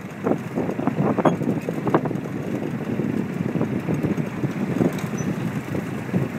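Wind and water noise aboard a reed boat under sail: a steady rush with frequent irregular slaps of water against the hull.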